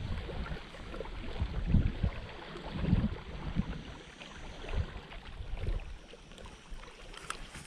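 Gusty wind buffeting the microphone in uneven low thumps over a steady rushing hiss, strongest about two and three seconds in.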